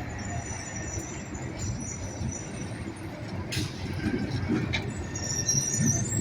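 Tram running on its rails: a steady low rumble with a thin high wheel squeal that grows louder toward the end, and a few sharp clicks.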